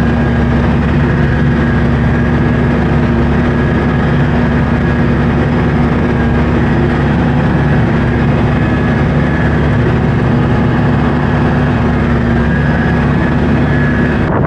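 Kubota M9000 diesel tractor running steadily under load while pulling an International 1490 haybine through a hay crop, its engine drone mixed with the mower's steady mechanical whir.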